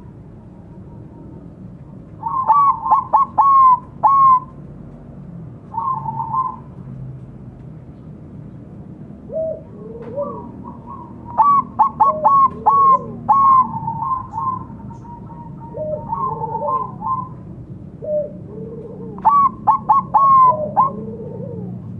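Bangkok-type zebra dove (perkutut) singing its cooing song. It gives several phrases of rapid staccato notes, the first about two seconds in and the longest near the middle, with lower, softer notes between the phrases.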